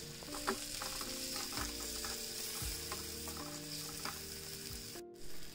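Chopped onions and tomatoes sizzling in butter on a small griddle, with a few light clicks of a metal spoon stirring them.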